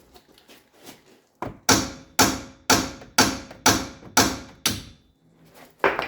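Hammer blows on the bolt of a seized front wheel hub, driving it to break it free: a few light taps, then a run of about eight hard strikes, roughly two a second, and one more strike near the end.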